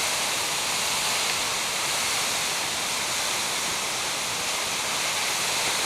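Sipi Falls waterfall: a steady, unbroken rush of falling water close by.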